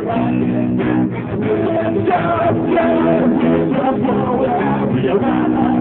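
Live band playing a jazzy song, with held chords sounding throughout.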